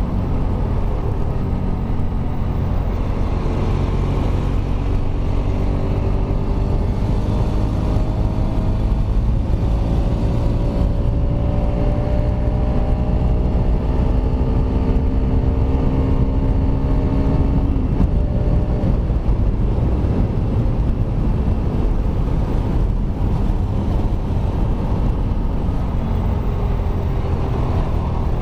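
Kawasaki Rouser RS200 single-cylinder engine running without its canister while riding, a steady low rumble. From about four seconds in the engine note climbs slowly for over ten seconds as the bike gathers speed, then drops back to a steady run.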